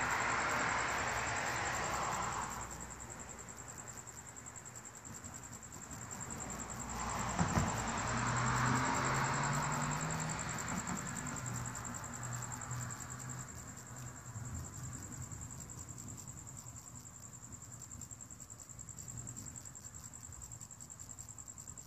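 Night insects, crickets, chirring steadily and high-pitched. Two swells of rushing noise come and go over it, one fading about two seconds in and a longer one building about seven seconds in and fading by eleven.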